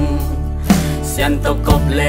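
A song with a voice singing over instrumental backing, with a steady bass and a drum hit about once a second.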